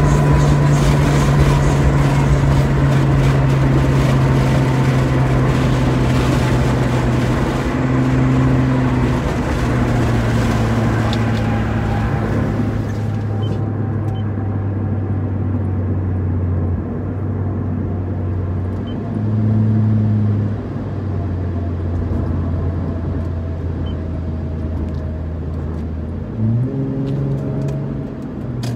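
Muffler-deleted Lexus IS250 2.5-litre V6 exhaust droning inside the cabin while driving. The engine note drops about halfway through, with short rises in revs about two-thirds in and again near the end.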